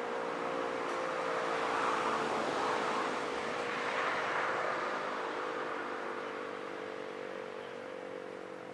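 E57 electric air-raid siren heard close to its rotor, sounding the steady all-clear tone over a loud rush of air. The tone sinks slightly in pitch and the sound fades gradually over the second half.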